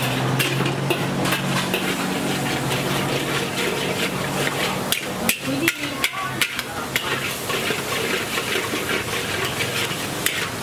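Street-food cooking clatter: irregular sharp clacks and knocks of metal utensils over a steady hiss, with a low hum that stops about halfway through.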